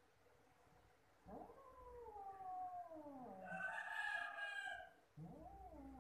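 Cat yowling at another cat in a territorial standoff: one long drawn-out wail starting about a second in that rises and then falls, turning harsher and louder near its end, followed by a second, shorter yowl at the end.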